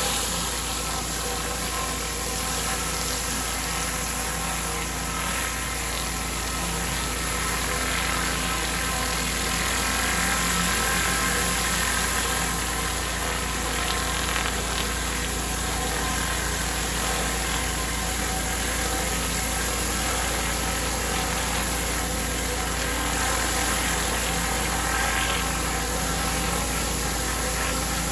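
Pressure washer engine running steadily under the spray of the water jet, a continuous even hum with a hiss over it.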